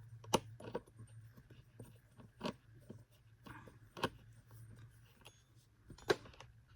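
Screwdriver unscrewing a screw from the plastic headlight housing of an upright vacuum cleaner, with irregular sharp clicks and taps of tool and plastic parts being handled, over a faint steady low hum.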